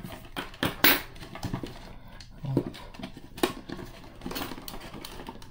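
Hands handling a plastic action figure and its elastic shock cord: scattered light clicks, taps and rubbing.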